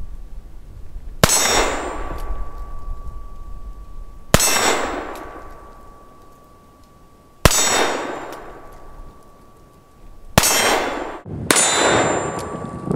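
.357 Magnum shots from a Ruger Security Six revolver fired one-handed, five in all, each followed at once by the long ringing clang of the hit steel silhouette target. The first three shots come about three seconds apart, the last two about a second apart.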